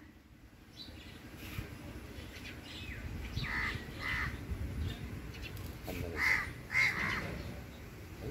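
Crows cawing, a string of short harsh calls, the loudest a little past the middle, over a low steady rumble.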